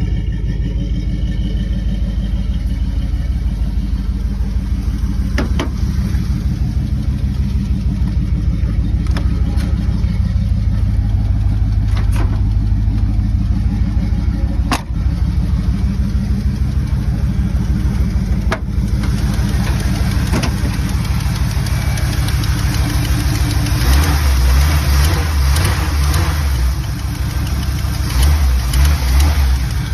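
Car engine idling with a steady, fast tick, which the owner says is nothing to worry about. Two louder surges in the engine note come near the end, and a few sharp clicks are heard along the way.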